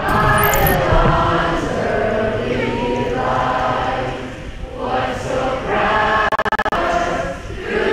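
A large crowd of young people singing together in unison, in long held phrases with short breaks about four and a half and seven and a half seconds in.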